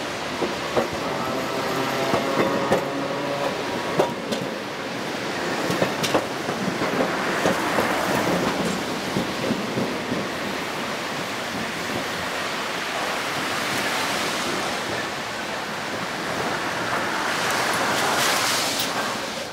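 City street traffic noise as a Sapporo 3300-series streetcar runs past on its tracks, with a few sharp clicks a few seconds in. A car passes close by near the end, the loudest moment.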